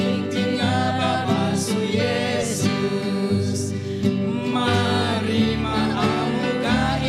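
A small group of two women and two men singing together, accompanied by a strummed acoustic guitar.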